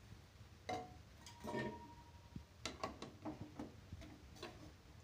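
Metal ladle stirring rice vermicelli in a metal kadai: faint, irregular clicks and scrapes of the ladle against the pan.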